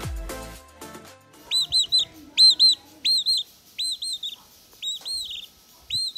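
A baby chick peeping loudly over and over: short high peeps, each rising and falling, in quick pairs and threes. Background music fades out in the first second.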